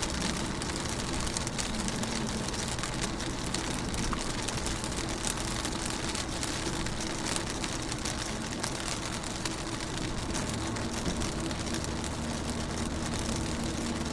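Rain falling on a car's windows, heard from inside the car: a steady hiss with many small drop ticks over a faint low steady hum.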